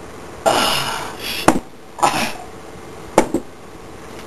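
A person coughing after a drink, two short coughing bursts, with a few sharp knocks in between.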